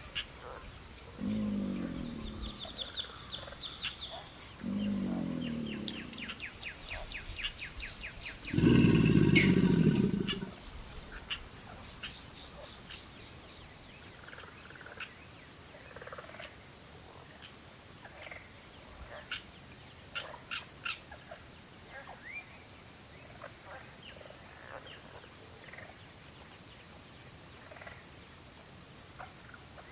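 Crickets trilling in a steady, high-pitched chorus, with faint bird chirps scattered through it. Three short, low, pitched calls come in the first ten seconds, the third the loudest.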